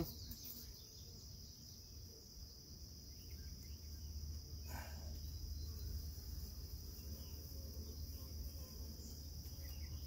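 Honeybees buzzing around an opened hive with a low steady hum that grows a little louder about halfway through, over a steady high-pitched insect trill like crickets.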